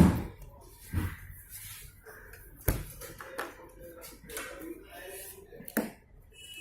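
A few sharp knocks and clicks from handling at a refrigerator, four in all, the loudest right at the start and about two and a half seconds in.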